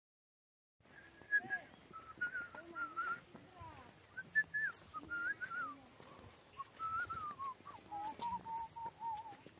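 A man whistling a tune through pursed lips, starting about a second in. The notes slide up and down in short phrases with brief breaks, and there is one longer held lower note near the end.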